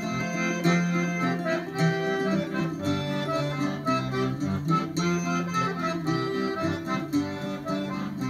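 Accordion playing the tune in an instrumental break between sung verses, with Irish bouzouki strumming along underneath.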